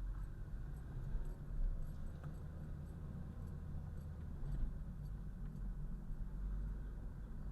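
Low, steady engine and road rumble inside the cabin of a 2011 Mazda 3 manual while it is driven, swelling a little now and then.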